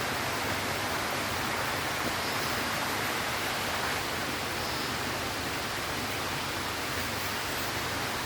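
Waterfall water rushing over rock tiers, a steady, unbroken noise.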